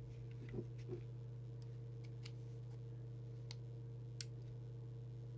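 Steady low electrical hum with a scattered handful of faint clicks as the CB radio's buttons and power control are pressed and handled.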